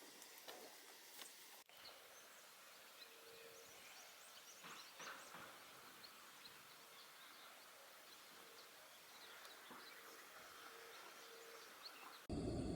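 Faint outdoor ambience with scattered high bird chirps and a faint short call repeating every second or so. It cuts abruptly to a much louder, steady low rumble near the end.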